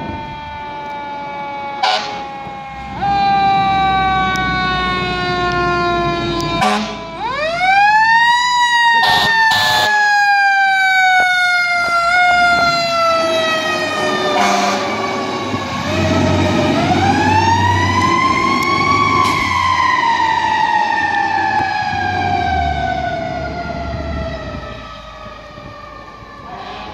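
Fire engine siren wailing, sliding slowly down in pitch, then winding back up to a high wail twice and slowly falling away each time as the truck passes and moves off. A few short sharp blasts cut in near the middle, and the truck's engine rumbles underneath.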